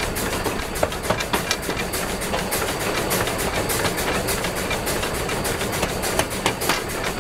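Running gear of the steam locomotive Spreewald in motion: a steady hiss with many irregular clicks and knocks as the driving wheels and coupling rods turn.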